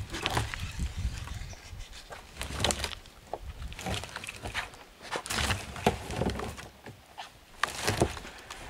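Black bear working a plastic bait barrel against logs: irregular knocking and scraping, with sharp cracks of wood, loudest near the start, midway and near the end.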